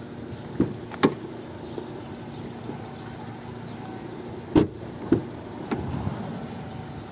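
Car door being worked on its hinges: a few sharp clicks and knocks, two near the start and three more about halfway through, over a steady low background. The door's creak is being tested after its hinge was sprayed with Astrohim lubricant.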